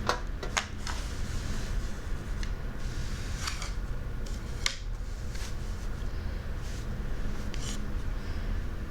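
Scattered light clicks and a few short scratchy rubs from sandpaper letter boards and lesson materials being handled, over a steady low hum.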